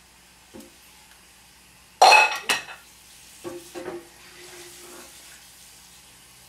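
Kitchen handling sounds at a glass mixing bowl while a bottle of red food coloring is opened and poured into cake batter: a sharp clatter about two seconds in, the loudest sound, then a few lighter knocks and clinks.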